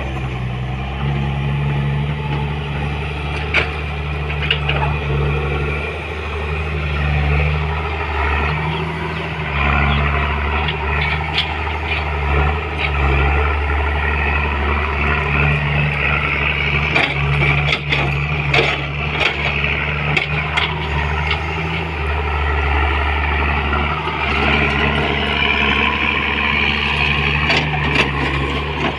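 Komatsu PC200 hydraulic excavator's diesel engine running steadily, its level rising and falling with the load as the machine digs and swings. Sharp clanks and knocks from the working machine come through at intervals, several of them bunched together about two-thirds of the way through.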